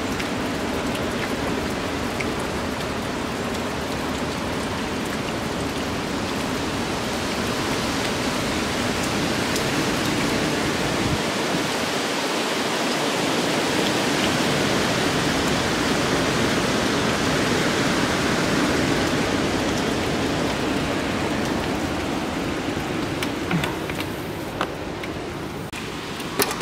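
Hurricane wind and heavy rain: a steady rushing noise that swells a little about midway and eases near the end.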